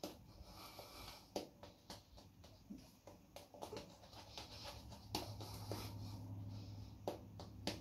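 Shaving brush working lime shaving cream lather over a stubbled face: soft, wet scratchy swishing with irregular small clicks. A faint low hum sits underneath from about five seconds in.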